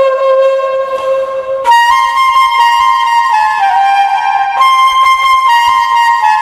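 Bamboo flute (bashi) playing a slow melody. A low note is held, then about a second and a half in it leaps up an octave to a louder, brighter note and goes on in long held notes that step down in pitch.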